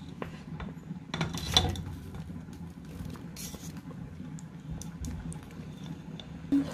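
Boiled rice sliding off a metal mesh strainer into a pot of syrup, with soft patters and a spatula clicking and scraping against the strainer; the louder scrapes come about a second and a half in. A low steady hum lies beneath.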